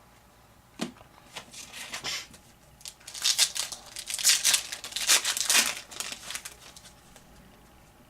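A trading-card pack wrapper being torn open and crinkled by hand: a run of short, crackling rustles that is loudest in the middle few seconds.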